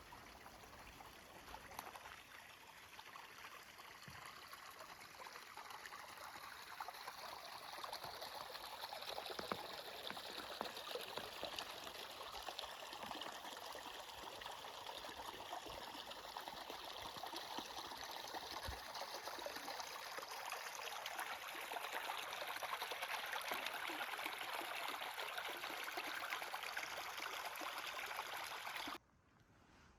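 Small stream running and trickling, a steady rush that grows louder about a quarter of the way in, then cuts off abruptly just before the end.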